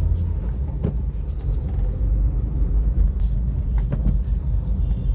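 Suzuki Baleno on the move, a steady low engine and road rumble, with a few faint knocks as the steering wheel moves slightly. The knocking is the steering noise that the mechanic traces to the steering column's gear.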